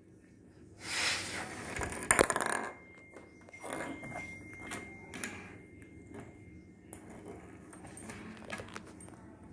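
Puffs of breath blown hard through a drinking straw to push a small plastic ball along a toy train track, with light clicks and rattles of the ball on the track. The two strongest puffs come about one and two seconds in, and weaker ones follow.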